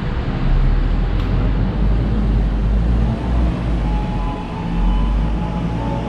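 Loud, steady arcade background din: a heavy low rumble under a noisy wash of machine sounds, with a few faint electronic tones coming in about two-thirds of the way through.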